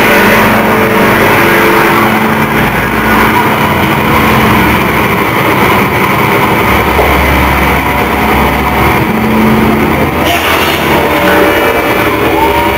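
Very loud, distorted live industrial rock band playing, a dense unbroken wall of sound with some held pitched notes; the sound grows brighter about ten seconds in.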